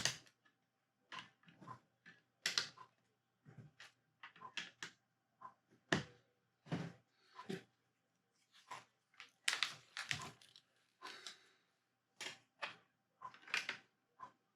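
Plastic Lego pieces clicking and clattering as they are handled and pressed together, in irregular clicks about one or two a second.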